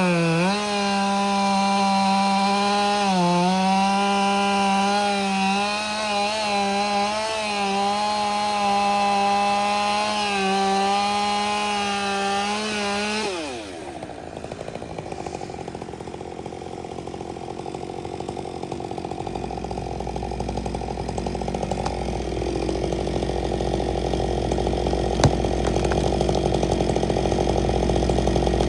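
Husqvarna chainsaw cutting at full throttle, its high engine note dipping in pitch as the bar bogs in the wood. About 13 seconds in it is let off and the pitch falls away sharply. A lower, rougher engine sound follows, with a single sharp click near the end.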